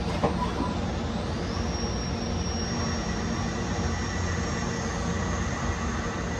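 Swiss-type sliding-headstock CNC lathe running: spindle whine and the steady noise of a gang tool turning the rounded end of a bar part. There is a brief click about a quarter second in, and a high whine rises in pitch about a second and a half in.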